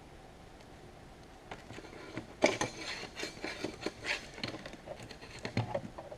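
Hand tools clicking, clinking and scraping against the plastic and metal parts of an old surge protector as a stubborn piece is worked loose. It starts after about a second and a half of quiet, with irregular clicks and scrapes and the sharpest knock about two and a half seconds in.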